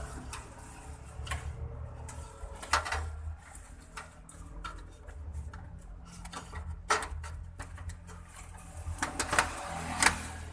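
Scattered clicks and knocks of hands working inside a steel desktop PC case, unlatching and pulling the power supply's 24-pin connector from the motherboard.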